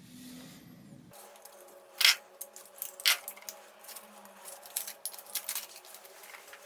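Irregular light clicks and clinks of small hard objects being handled, with two sharper clinks about two and three seconds in. A low hum cuts off abruptly about a second in.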